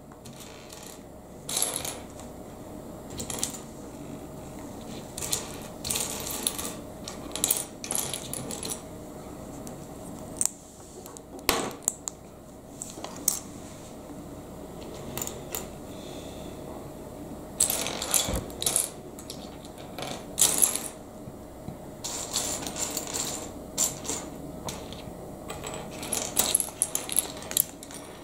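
Small plastic Lego bricks being handled, pressed together and set down on a wooden tabletop: irregular clicks and light clattering, with a couple of sharper clacks near the middle.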